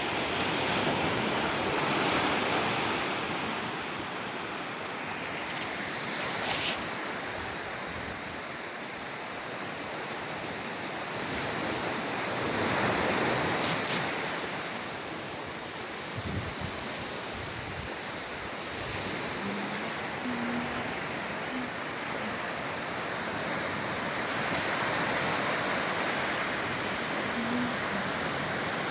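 Sea surf breaking and washing up the shore, swelling and easing about every ten to twelve seconds, with a couple of brief clicks.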